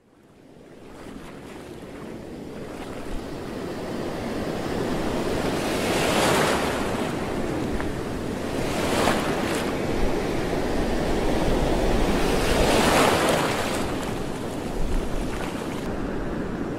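Sea waves washing and swelling about three times, with wind rumbling on the microphone. The sound fades in from silence over the first few seconds.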